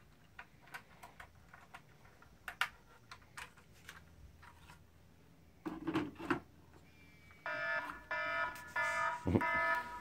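Light clicks and knocks of monitor-stand parts being handled, then a phone ringtone starts about three-quarters of the way through: a repeating electronic multi-tone pattern that switches on and off.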